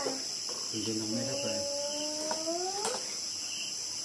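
Steady high-pitched chorus of crickets. A voice rises in a long drawn-out tone in the middle, and there is a sharp click near the end.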